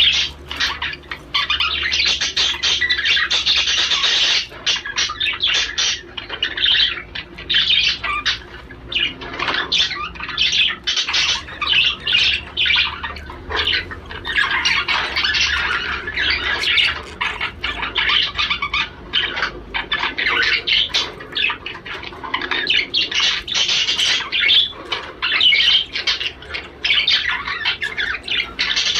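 Male budgerigar warbling and chattering: a fast, unbroken run of chirps, twitters and squawks. It is the courtship warble of a male budgie in breeding condition.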